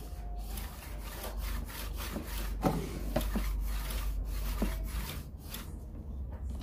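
A hand tool rubbing back and forth on wood in quick, even strokes, about three a second, over a steady low hum; the strokes die away near the end.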